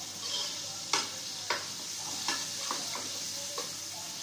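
A long metal ladle stirring and scraping through a large metal pot of qorma base: browned onions and softening tomatoes in masala. It clacks sharply against the pot about five times, loudest about a second in, over a steady sizzle.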